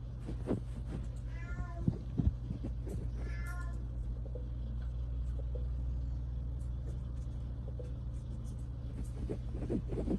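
A two-month-old British Longhair kitten meowing twice, short high calls about a second and a half and three seconds in, among scattered light taps and knocks, over a steady low hum.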